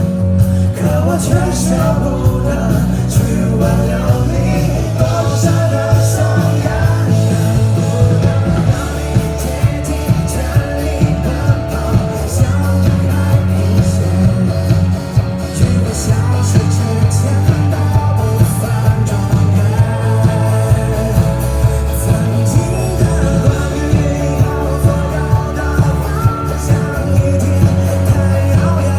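Rock music with a singing voice and guitar over a steady beat.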